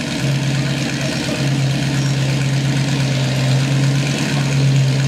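Mazzanti Evantra's 7-litre V8 idling at a steady low pitch.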